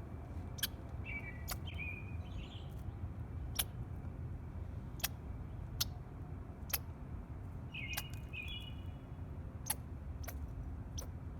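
Squirrel chirping while eating: short chirps in quick groups of two or three, with sharp clicks scattered every second or so between them, over a steady low rumble.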